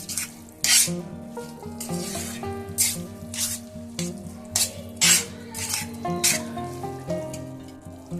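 Thick turmeric halwa being stirred and scraped around a pan on a low flame, in repeated strokes about once or twice a second, with the sizzle of it cooking in ghee. Background music plays under it.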